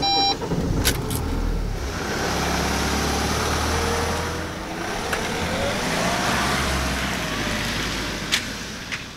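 A large panel van's engine started with the key and running, with a couple of clicks about a second in. The van then pulls away, its engine note rising as it accelerates and fading near the end.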